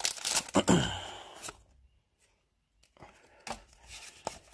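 Foil Pokemon booster pack wrapper being torn open and crinkled, loudest in the first second and a half. After a short quiet gap comes faint rustling and clicking as the cards are handled.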